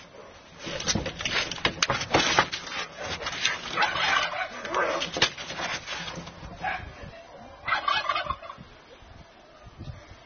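Two cats fighting: yowling and growling with many short scuffling sounds in the first half, a longer drawn-out cry about four to five seconds in, and another burst of noise around eight seconds, quieter toward the end.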